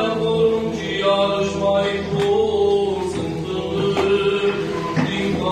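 Orthodox funeral chant: voices singing a slow liturgical melody in long held notes.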